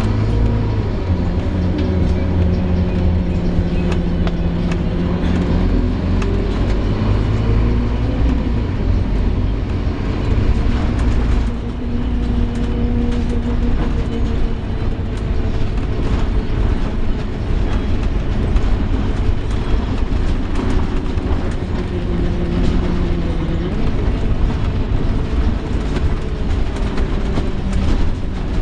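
Scania K230UB single-deck bus heard from on board while driving: the diesel engine and drivetrain running with a groaning noise, their pitch rising and falling as the bus speeds up and changes gear. There is a brief drop in sound at about a third of the way through.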